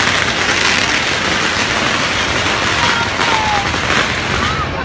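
Strings of firecrackers going off in a dense, continuous crackle that eases off near the end.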